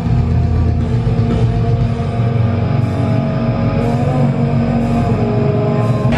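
Loud heavy rock music filling the room: a deep low rumble under long held chords.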